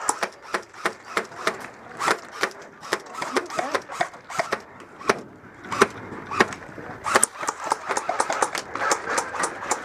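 Airsoft guns firing: a quick, irregular run of sharp snaps that comes much faster in the last few seconds.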